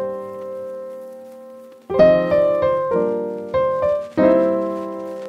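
Background piano music: a held chord fades away over the first two seconds, then a run of new chords is struck from about two seconds in.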